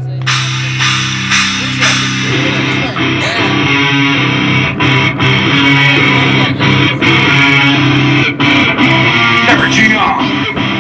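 Live rock band playing: electric guitar over sustained bass notes and drum hits, the full band thickening about two seconds in.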